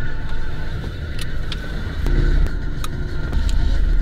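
Car engine sound effects from a movie trailer, played through the car's own speakers by a newly installed Jensen VX7020 head unit: a loud, bass-heavy rumble that swells about two seconds in and again shortly before the end.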